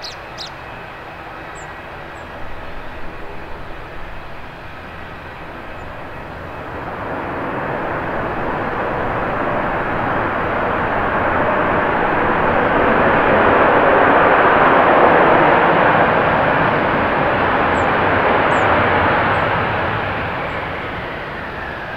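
Airbus A321's twin jet engines on the landing rollout along a wet runway. The engine noise swells over several seconds into reverse thrust, holds at a peak, then spools down as the aircraft slows, over a rushing hiss of spray.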